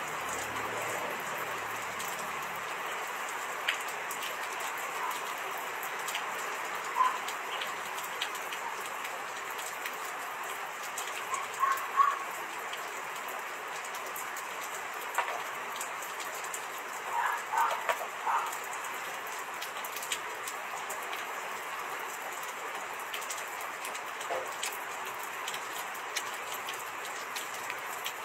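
Steady, even hiss like light rain falling, with a few short high chirps scattered through it, a small cluster of them about 17 seconds in.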